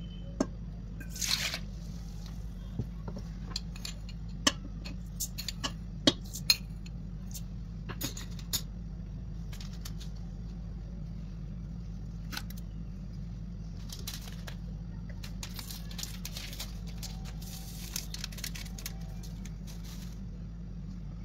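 Scattered clinks and light knocks of a glass measuring jug and a stainless steel stand-mixer bowl, with a short splash of milk being poured about a second in, over a steady low hum.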